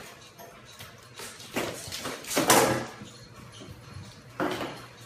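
Three short scraping knocks, the loudest about halfway through: a cup stuck over a kitten's head rubbing and bumping against a baseboard heater.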